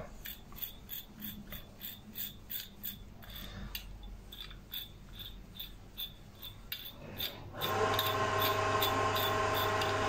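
Classic Ford F-series speedometer mechanism being turned by hand through its drive shaft, anti-clockwise to wind the odometer back toward zero: a train of small rasping ticks, about four a second. About three quarters of the way in a steadier whirring hum joins as the mechanism picks up speed.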